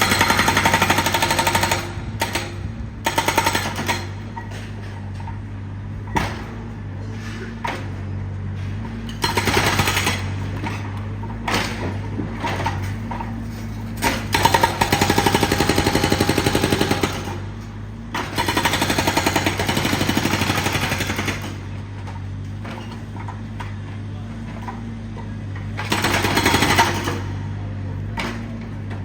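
A jackhammer (breaker) hammering in repeated bursts of one to three seconds with short pauses between, over a steady low hum.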